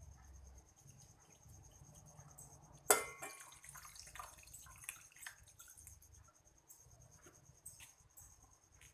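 Water being poured into a container in small splashes and drips, with a sharp knock about three seconds in.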